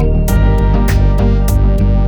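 Background music: a plucked-guitar instrumental with a steady beat.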